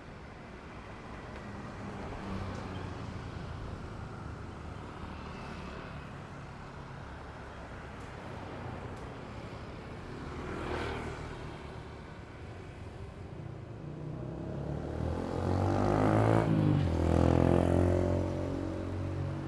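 Motor vehicles passing on a city street over steady traffic noise. One vehicle goes by quickly about halfway through. Near the end a louder engine with a strong low hum passes close, its pitch falling as it goes by.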